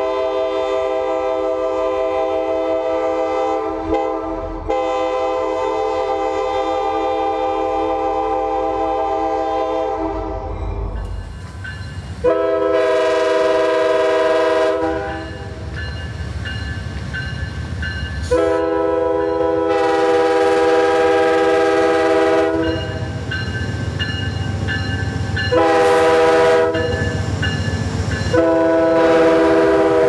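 A Norfolk Southern diesel locomotive's multi-chime air horn blows one long steady blast for about ten seconds. Then an Amtrak Genesis P42 locomotive's horn sounds long, long, short, long as the passenger train passes, with diesel engine and wheel rumble between the blasts. Long, long, short, long is the standard signal for approaching a grade crossing.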